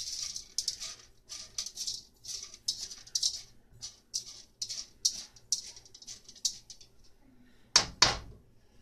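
Unpopped popcorn kernels stirred through oil in a nonstick pan with a utensil: rattling, scraping strokes, about two a second. Near the end, two loud knocks.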